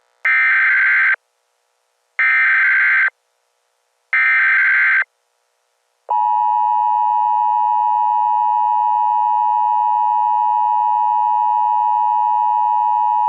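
Emergency Alert System signal: three short bursts of SAME header data, each about a second long and evenly spaced, then, about six seconds in, the steady two-tone EAS attention signal starts and holds.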